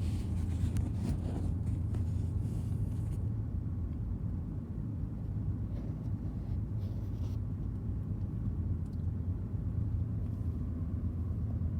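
Steady low rumble of road and engine noise inside the cabin of a moving Ford car.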